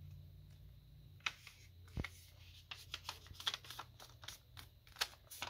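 Thin origami paper rustling and crackling as it is folded, creased and opened out by hand, a run of short crisp crackles starting about a second in. A single soft knock about two seconds in.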